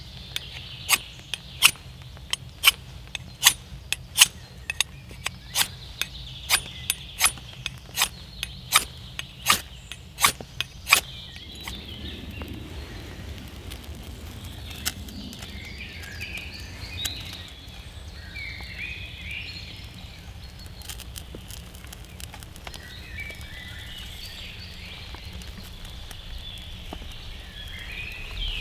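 Knife blade scraped in short, sharp strokes, about two a second, for some eleven seconds while tinder is prepared to light a wood stove. Faint bird chirps follow.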